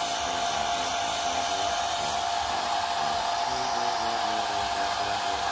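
Handheld hair dryer running steadily: a constant rush of air with a steady whine in it.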